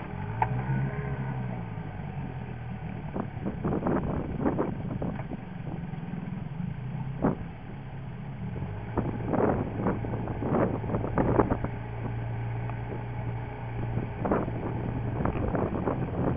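1956 Johnson Seahorse 7.5 hp (AD-10) two-stroke twin outboard motor, freshly rebuilt, running under way. Its pitch swells and settles in the first couple of seconds, then the note holds steady, with frequent short sharp noises over it.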